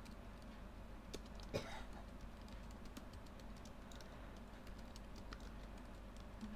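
Faint typing on a computer keyboard: irregular keystroke clicks, with one louder thump about a second and a half in.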